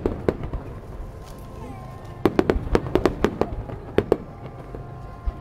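Aerial fireworks bursting: a few sharp crackling pops at first, a short lull, then a rapid run of pops about two seconds in that thins out near the end.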